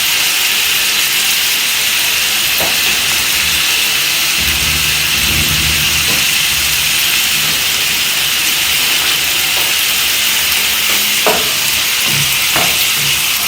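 Liver cooking in a pan of sauce on the stove, sizzling with a steady hiss, with a few light knocks near the end.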